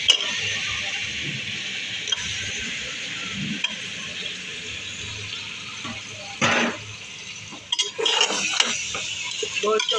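Raw beef pieces sizzling in hot oil in an aluminium pressure cooker as they start to fry in garlic-ginger paste, the hiss slowly thinning. A steel slotted spoon clinks and scrapes against the pot while the meat is stirred, busiest in the last couple of seconds.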